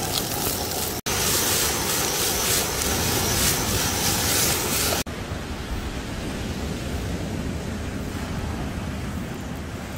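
Food frying in a pan on a portable gas stove: a steady sizzling hiss, broken by abrupt cuts about a second in and about five seconds in, and softer after the second cut.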